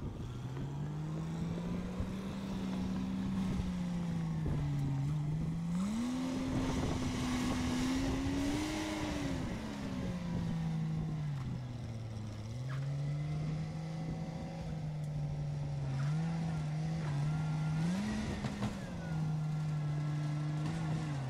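Nodwell 119 tracked snow carrier's engine running under load while maneuvering in snow, its pitch rising and falling several times with the throttle, highest about seven to nine seconds in. Near the end the pitch drops and jumps in quick steps as the manual transmission is shifted.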